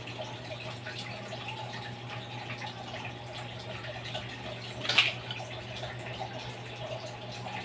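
Bicycle suspension fork's lower leg being slid off its stanchions and set down by hand, with one sharp knock about five seconds in, over a steady hum and hiss.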